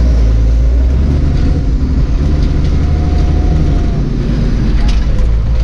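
Zetor Crystal tractor's diesel engine running steadily, heard from inside the cab as the tractor drives and turns: a loud, continuous low drone.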